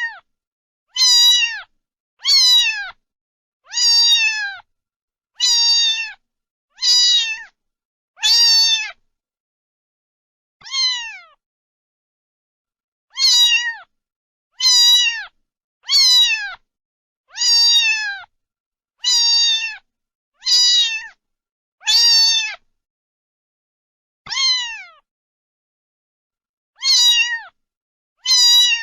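A cat meowing over and over, about sixteen short high-pitched meows that each fall in pitch, one roughly every second and a half, with a few longer pauses.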